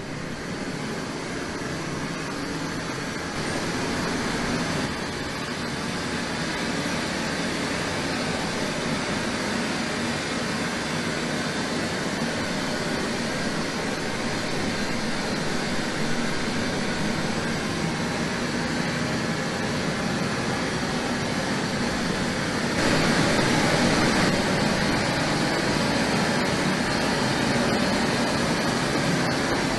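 Steady test noise from a dodecahedron loudspeaker used for a sound-insulation measurement of a movable partition, an even hiss-like rush with no tones, getting louder in a step about 3.5 seconds in and again about 23 seconds in.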